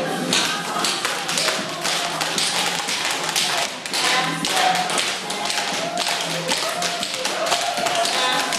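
Many children's tap shoes tapping on a hard floor, an irregular, unsynchronized clatter of metal taps throughout.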